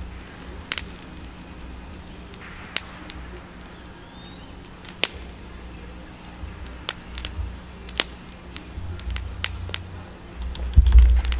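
Campfire of twigs and sticks crackling, with sharp pops at irregular intervals. A low rumble comes in near the end.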